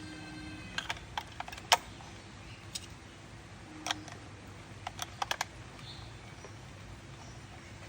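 Irregular sharp plastic clicks and taps in small clusters, as the alarm clock is handled and its buttons pressed. A ringing tone with several overtones dies away about half a second in.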